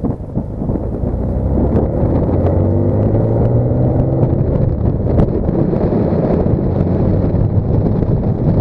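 Wind rushing over a camera mounted on the rear decklid of a moving Dodge Stealth, with the car's running and road noise underneath. The engine's hum stands out more clearly between about two and five seconds in.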